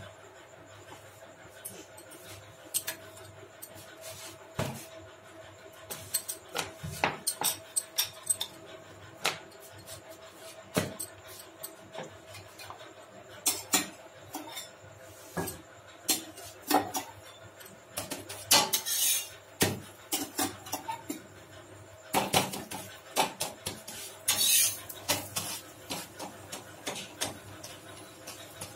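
Steel spatula clicking, tapping and scraping against a tawa as a paratha is pressed and turned, in scattered irregular knocks. A few short hissing bursts break in, in the middle and again later.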